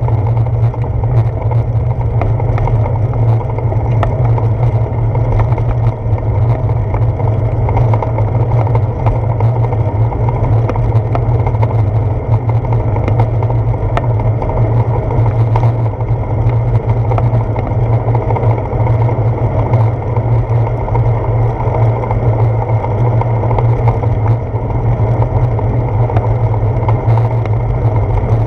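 Wind rushing over a handlebar-mounted GoPro Hero 4's microphone on a moving bicycle: a steady low rumble.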